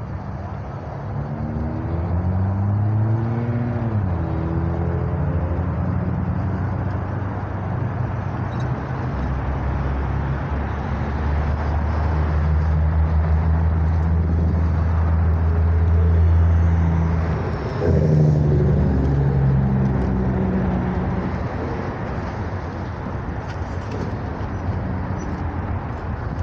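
Road traffic at an intersection: car engines idling and pulling away, with the engine note rising as vehicles accelerate about three seconds in and again about two-thirds of the way through. A steady low engine hum is loudest in the middle, over a constant rush of traffic noise.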